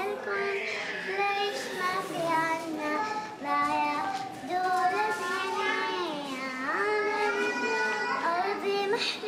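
A young girl singing loudly in Arabic, at the top of her voice, in long held notes that slide up and down between phrases.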